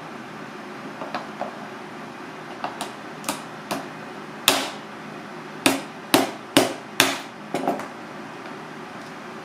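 Small metal crab hammer striking a cooked mud crab claw on a plastic cutting board to crack the shell: about a dozen sharp knocks. The first few are light taps. The heaviest blows come from about four and a half seconds in, with four in quick succession.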